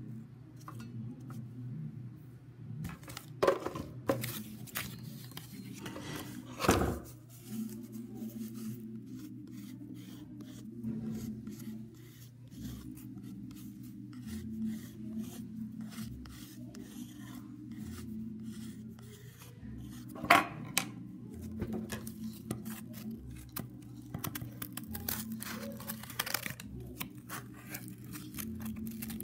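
Cardboard being cut and torn by hand for a craft: scissors snipping and cardboard scraping and rustling in many short clicks, with a few louder knocks on the table.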